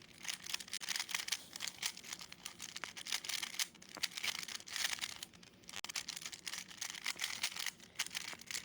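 GAN speed cube being turned quickly, a dense run of plastic clicks and rasps from the layer turns, coming in bursts with short pauses.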